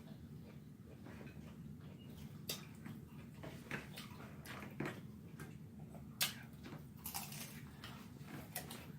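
Mouth sounds of eating: scattered wet clicks and crackles of chewing and lip-smacking, a few at a time, over a steady low hum.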